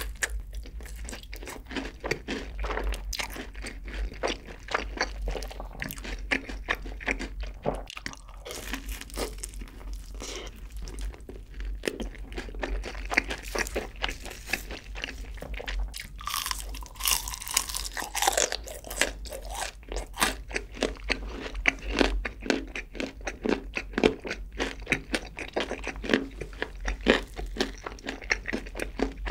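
Close-miked crunching and chewing of crispy, cheese-seasoned fried chicken, many quick crackling crunches one after another.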